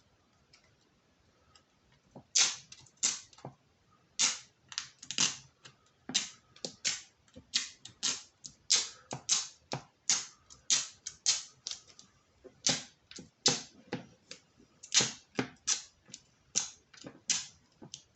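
Dust-absorber sticker dabbed again and again on a phone's glass screen, a quick sharp tick each time it is pressed and lifted. The ticks come irregularly, about two a second, starting about two seconds in.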